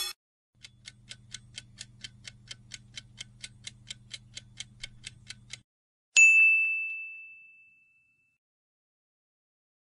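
Quiz countdown-timer sound effect: clock-like ticking, about four ticks a second over a low hum, for about five seconds. A single bright ding follows about six seconds in and rings out as it fades, marking the answer reveal.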